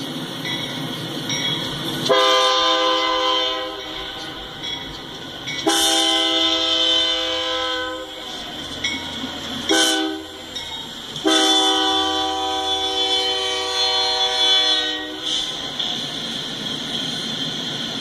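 Freight locomotive air horn sounding the grade-crossing signal as the train approaches: two long blasts, a short one, then a final long blast of a multi-note chord.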